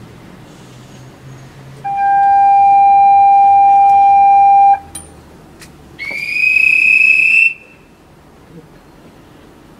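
Departure signals at a station platform: a steady electronic buzzer tone for about three seconds, then a shrill whistle blast rising slightly in pitch for about a second and a half, before the train's doors close.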